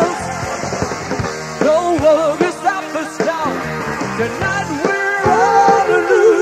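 Rock band playing with a lead singer, the voice held on long wavering notes over guitars and drums.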